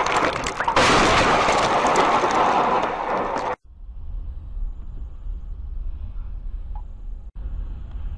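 Loud, dense crashing noise of a vehicle collision recorded by a dashcam, cutting off suddenly about three and a half seconds in. After that, the low rumble of a car's engine and tyres heard from inside the cabin.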